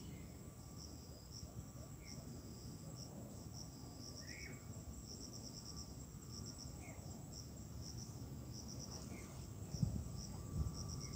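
Insects chirping in quick trains of three to five high pulses, repeating every second or so over a steady high-pitched whine. A few soft low bumps near the end.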